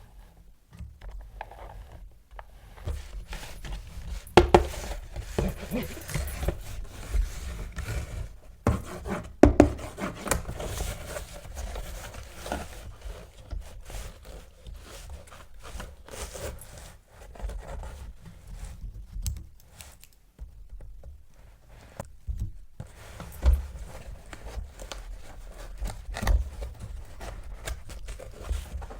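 Hands handling plastic toys and their packaging: irregular clicks, taps and scraping, with a few sharper knocks.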